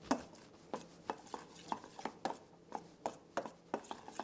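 Metal spoon stirring melting white chocolate in a stainless steel bowl, clicking lightly against the bowl's sides a few times a second.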